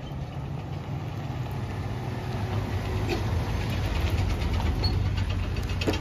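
GMC pickup truck's engine idling with a steady low rumble.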